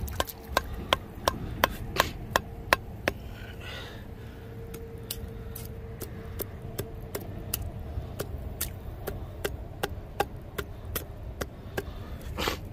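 Sharp wooden knocks and cracks from sticks being handled and broken, a quick run of about three a second at first, then scattered, with one louder knock near the end.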